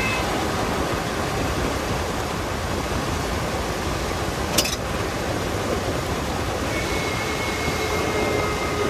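Steady road and wind noise from the Explorer's front end on the move, with one sharp pop about halfway through. The pop comes from the top of the right-front coil spring snapping against the seat of its coil bucket, a spring that is not held by a retainer.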